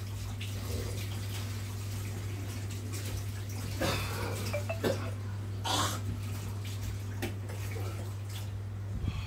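Electric fan running: a steady low hum with air noise, and a few short clicks or scrapes.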